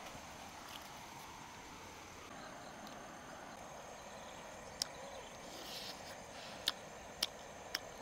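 Steady outdoor insect drone, cricket-like, with four sharp, high clicks in the second half.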